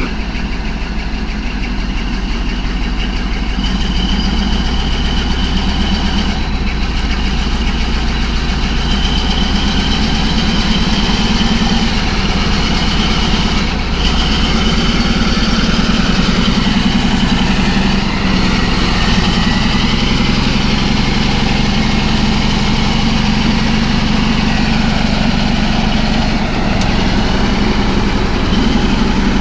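Caterpillar D11 bulldozer's diesel engine running steadily with a high whine over it, with small changes in level now and then. The dozer is being moved backwards and forwards to circulate oil through its clutch packs after standing unused for five months.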